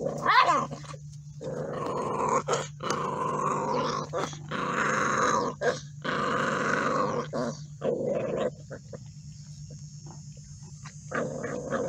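Several pit bull puppies growling at one another as they crowd a food pan, in long rough stretches, with a brief whine near the start.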